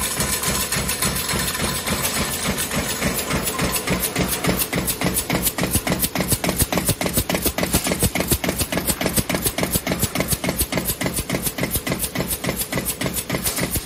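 High-speed CNC sheet-feed press stamping 83 mm tinplate can ends, its strokes falling in a rapid, even rhythm over a steady machine hum.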